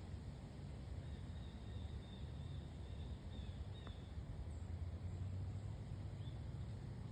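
Quiet outdoor ambience: a steady low rumble, with a faint high insect trill for a couple of seconds about a second in and a few faint bird chirps.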